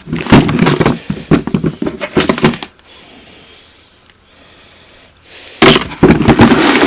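Small metal tools and loose hardware from a toolbox clinking and clattering as they are handled, in two bursts of rapid knocks with a quiet pause between them.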